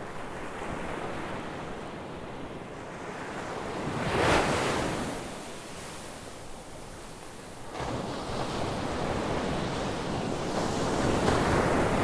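Ocean surf, waves breaking and washing ashore, with wind noise. One wave breaks loudest about four seconds in, and the surf builds again from about eight seconds on.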